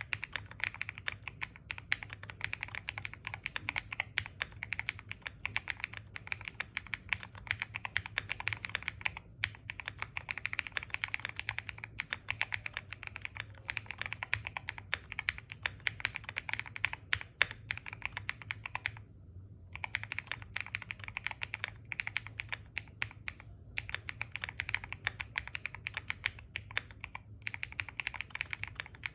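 Continuous fast typing on a mechanical keyboard fitted with G-Square White Warrior V2 switches, a POM plate and Cherry-profile keycaps, a dense run of keystroke clacks. The typing breaks off briefly a few times, the longest pause about two-thirds of the way through.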